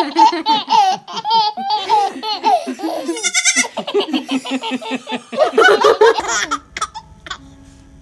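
Toddler laughing hard in quick repeated bursts, loudest through the first six seconds, then dropping away.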